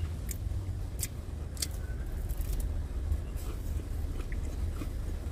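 Vehicle engine idling, heard inside the cab as a steady low rumble, with a few scattered light clicks over it.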